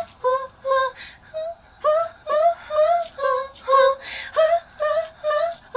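A woman singing a string of short, separate notes in a vocal recording booth, about two a second. Each note scoops up into its pitch, and the notes step between a few pitches.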